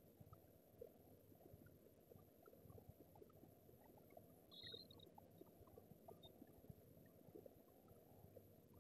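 Near silence: faint low room tone with scattered faint ticks.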